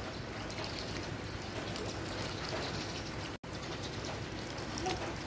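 Light rain falling, a steady even hiss, broken by a momentary dropout about three and a half seconds in.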